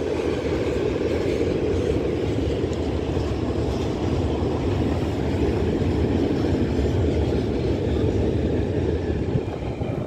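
Freight train wagons rolling steadily across a concrete rail overpass, a continuous low rumble of wheels on track.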